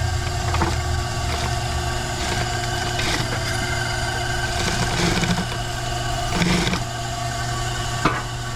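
A motor running steadily with a low hum, with a few short clicks or knocks scattered through.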